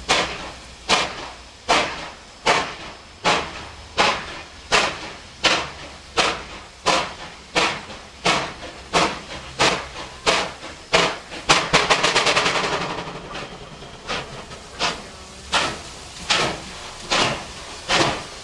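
Streamlined C38 class steam locomotive 3801 starting a train with slow, heavy exhaust beats that gradually quicken, and hissing from its open cylinder drain cocks. Around two-thirds of the way through the beats briefly blur into a rapid flurry for about two seconds, the driving wheels slipping, before the steady beat picks up again.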